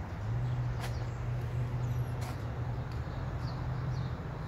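Outdoor background: a steady low hum with a few faint bird chirps and two sharp clicks.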